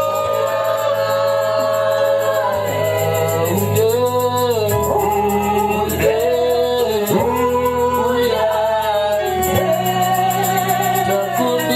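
Gospel singing over instrumental backing: long held sung notes over sustained chords, with a steady ticking beat.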